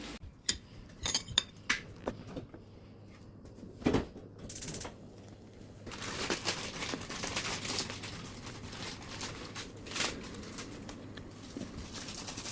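Dishes and kitchen containers being handled: a quick run of clinks at first, then a knock, then a longer stretch of clattering and rustling with another knock near the end.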